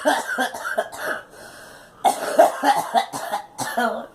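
A girl coughing in two fits of quick, repeated coughs, the second fit starting about two seconds in after a short pause.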